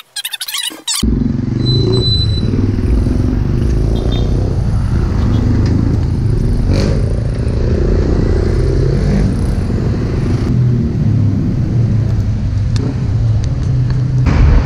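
Loud, steady road and traffic noise, with wind rumbling on the microphone, starting about a second in.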